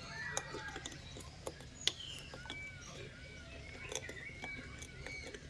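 Caged birds chirping: short, clean whistled chirps, including a run of several arched notes about half a second apart, with scattered sharp clicks.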